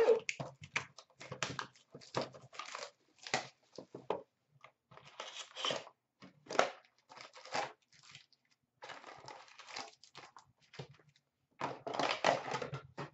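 A sealed box of trading cards being cut open and unpacked: its wrapper crinkling and tearing, and cardboard rustling and scraping in quick, irregular bursts, busiest near the end.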